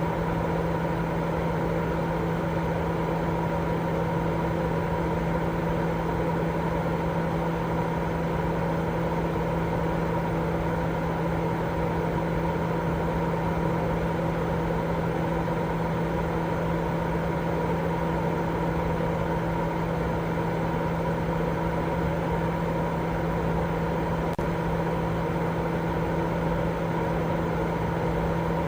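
Continuous baby-sleep white noise: a steady, unchanging rushing hiss weighted toward the low and middle range, with a constant low hum running through it.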